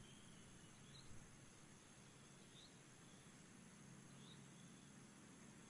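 Near silence: faint meadow ambience with a short, high chirp about every one and a half seconds, three in all.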